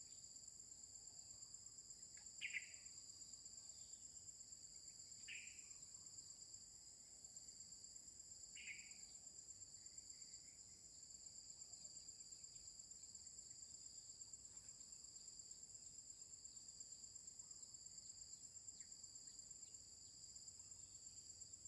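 Steady high-pitched drone of an insect chorus, crickets or cicadas, with three short chirps in the first nine seconds.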